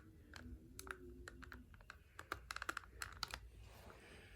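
Quiet, irregular clusters of small sharp clicks and snaps: a hand tool cutting into and working the hard plastic parts of an action figure.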